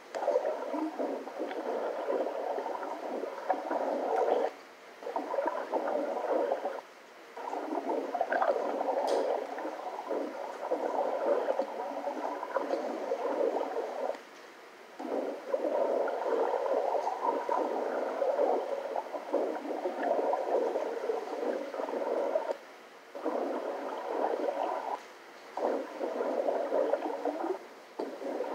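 Underwater audio from swimming footage, played back through a computer speaker: muffled gurgling and bubbling of water, in long stretches broken by several short pauses.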